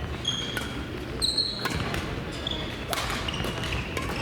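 Badminton doubles rally: sharp clicks of rackets striking the shuttlecock and short high squeaks of shoes on the court floor, over a steady low background noise.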